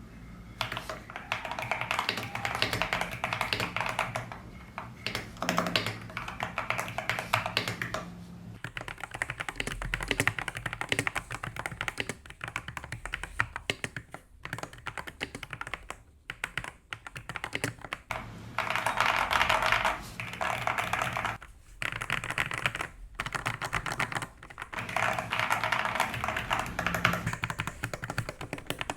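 Fast typing on a keyboard fitted with gradient keycaps: dense runs of rapid key clicks, broken by a few brief pauses.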